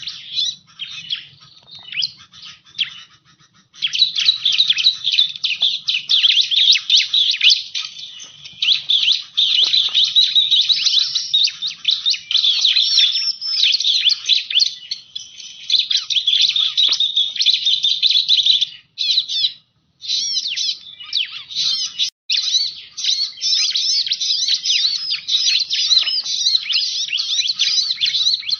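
Bar-winged prinia (ciblek) song, a recorded lure call: fast, high chittering and trilling, scattered at first and then dense and almost unbroken from about four seconds in, with two brief breaks later on.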